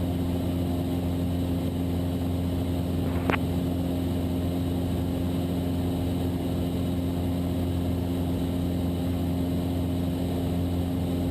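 Cessna 172's piston engine and propeller droning steadily in cruise flight, with one brief click about three seconds in.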